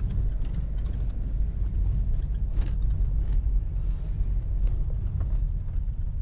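Car driving on a rough dirt road, heard from inside the cabin: a steady low rumble of engine and tyres, with a few light clicks and rattles.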